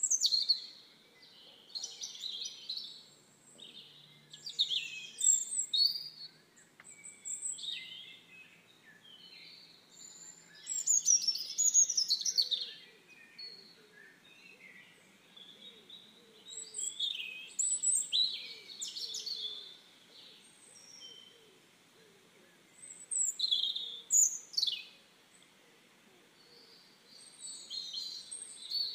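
Songbirds chirping and singing in repeated bursts of high calls and trills, with short lulls between. Several calls are quick sweeps falling in pitch.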